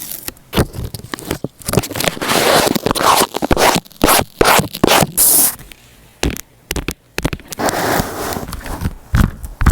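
Paper and sticker handling for a journal layout: irregular scratchy rustling, scraping and peeling, with a few sharp clicks.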